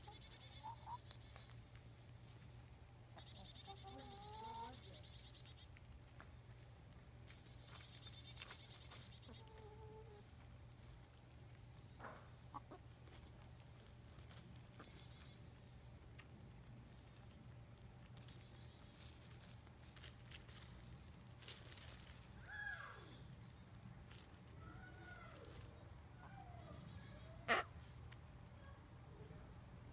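Chickens giving soft, low warbling calls every few seconds, with a sharp click near the end.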